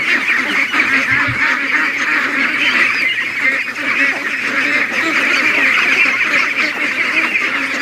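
A large flock of domestic ducks calling together: a continuous din of many overlapping quacks and chatter, with no single call standing out.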